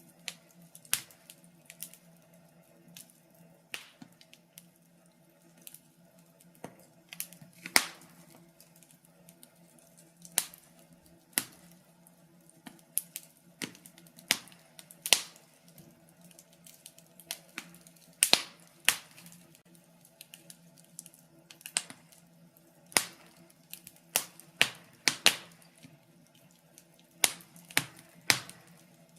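Wood fire in a fireplace crackling, with sharp pops at irregular intervals, several a second at times. A faint steady low hum runs underneath.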